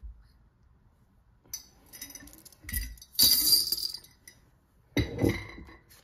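A short burst of bright metallic jingling about three seconds in, among light handling sounds, followed by a knock about five seconds in.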